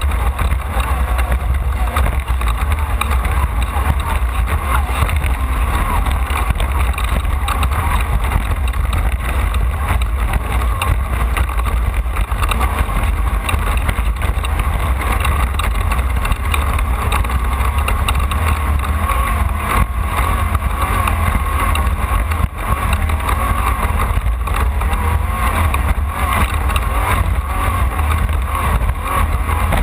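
Off-road race car driven hard over rough desert terrain: loud, steady engine and driveline noise with a heavy low rumble, broken by frequent knocks and bangs from the suspension and chassis.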